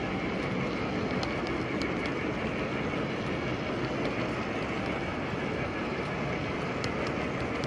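Model freight train of double-stack container well cars rolling steadily past on metal track, a constant rumble of wheels with a few sharp clicks scattered through it.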